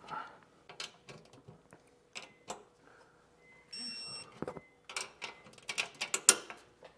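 Torque wrench working the bolts of a trailer suspension crossmember: a run of ratcheting clicks, loudest and densest near the end as the bolts are torqued down. A short electronic beep sounds about four seconds in.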